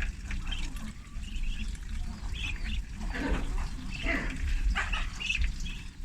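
A brood of ducklings peeping in short, high calls, with two louder calls about three and four seconds in.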